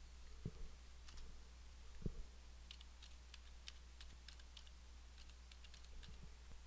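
Faint typing on a computer keyboard: scattered key clicks, with a quick run in the middle as a web address is typed. There are two soft thumps about half a second and two seconds in, over a low steady hum.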